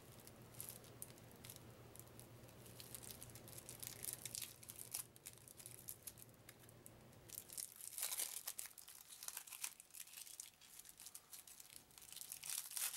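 Thin cellophane shrink-wrap being picked at and peeled off a deck of playing cards, with irregular crinkling and small tearing crackles that grow busier about halfway through.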